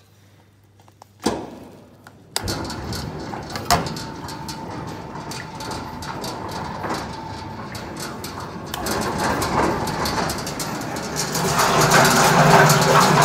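A sharp click, then the Inject Star RSW 100 processing machine starts up and its electric drive runs steadily with a low hum and mechanical rattle, growing louder near the end.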